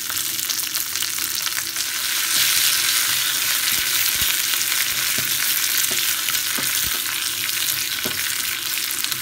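Green chillies, curry leaves and dried red chillies sizzling in hot oil in a small steel pan while a wooden spatula stirs them. The sizzle grows louder about two seconds in, with a few sharp ticks scattered through it.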